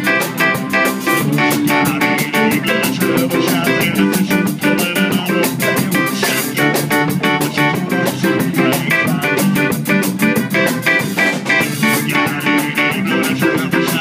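Ska band playing, with guitar and drums over a fast, steady beat.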